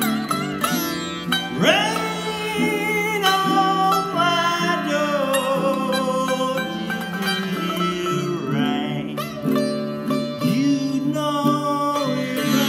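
Sitar and baritone ukulele playing together, the sitar's plucked notes sliding in pitch, with a strong rising bend about a second and a half in and another near the nine-second mark.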